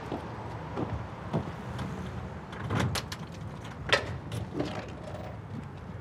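Steady street traffic rumble with footsteps on pavement. About four seconds in, the sharp clack of a heavy metal door's handle and latch as the door is pulled open, with a few more knocks as it swings.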